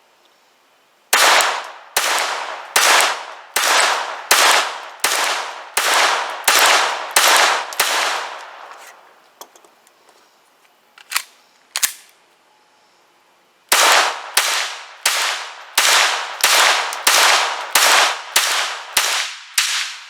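Glock G44 .22 LR pistol firing two ten-round magazines in steady strings of about one shot every two-thirds of a second. Two short sharp clicks come between the strings.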